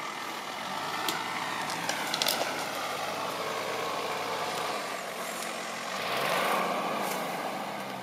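Nissan Patrol 3.3 turbo-diesel straight-six engine pulling the 4x4 up a steep, rutted mud track, with the engine working harder around six seconds in. A few short clicks sound in the first half.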